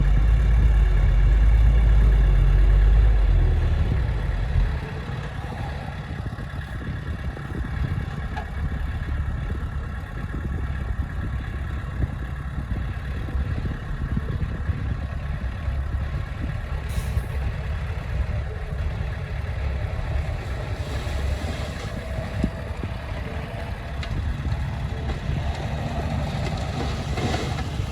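Diesel engine of heavy earthmoving machinery running. A deep rumble is loud for about the first four seconds, then drops back to a lower, steady running level.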